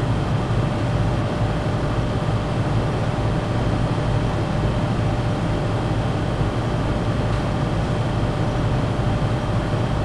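HVAC air handler's blower running steadily: an even rush of moving air over a low hum, with a faint steady whine.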